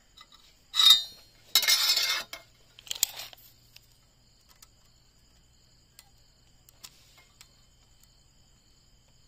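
Metal hand tools clinking and clattering on a rusty steel baseplate: a steel try square is set aside and a steel tape measure is drawn out. There is a sharp clink just under a second in, a longer rattle around two seconds, another clatter near three seconds, then only a few faint ticks.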